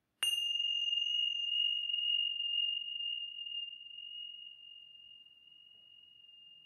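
A small high-pitched singing bowl struck once, ringing one clear tone that slowly fades.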